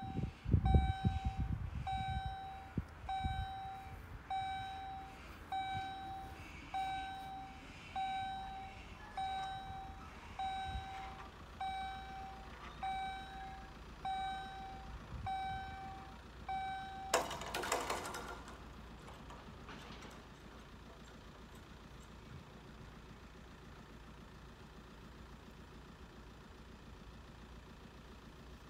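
GZT30 level-crossing warning bells ringing a repeated single ding about once a second while the barrier gates lower. The ringing stops a little over halfway through, followed by a brief loud rush of noise and then a low steady background.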